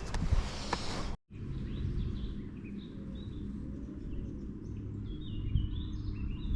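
Small birds chirping and calling, many short high notes and some stepped, falling phrases, over a low steady outdoor rumble. It follows an abrupt cut about a second in; before the cut there is a broad noisy hiss.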